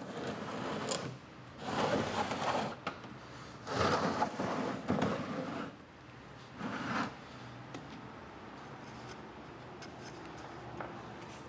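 A paintbrush scrubbing paint onto the dollhouse's wooden balsa surface, a dry rubbing sound in about four short stretches over the first seven seconds, then only faint room hiss.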